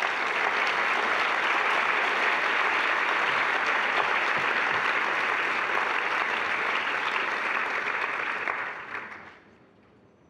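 Large audience applauding, steady and dense, then dying away about nine seconds in.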